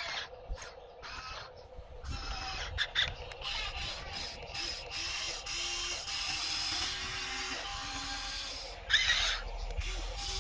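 Radio-controlled toy construction machine's small electric motors and plastic gearboxes whirring steadily, with a brief louder clatter about nine seconds in.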